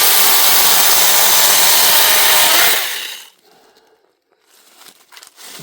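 Einhell chainsaw running loudly and steadily, then dying away about three seconds in.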